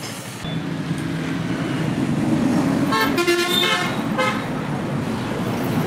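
Motor vehicle running with a steady low rumble, and a horn tooting for about a second around three seconds in.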